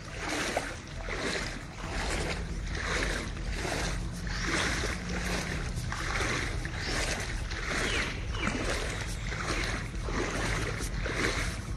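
Floodwater splashing and swishing in a steady rhythm, a stroke a little more than once a second, as someone moves through it, over a steady low rumble.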